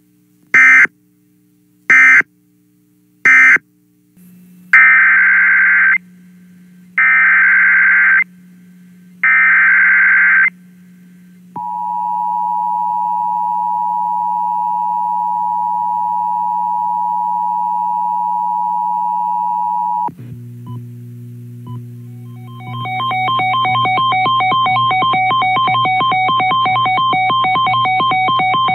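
Emergency Alert System signalling: three short screeching data bursts of an end-of-message code, then the three longer data bursts of a SAME alert header, then about eight seconds of the steady two-tone EAS attention signal. After it cuts off, a low hum sets in, and a fast-pulsing electronic beep starts in the last few seconds.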